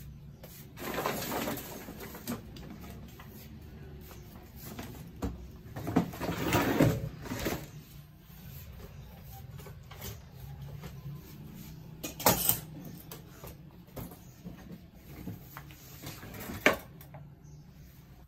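Household items and luggage being handled while packing: rustling and shifting with a few sharp knocks and clicks, the loudest stretch about six to seven and a half seconds in.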